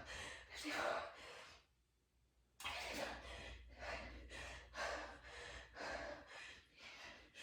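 A woman's heavy, rhythmic breathing from exertion during a fast set of push-ups: quick, noisy breaths in and out, broken by a brief silence about two seconds in.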